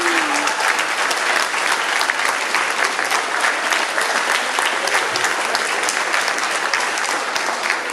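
A roomful of people applauding, many hands clapping at once at an even level.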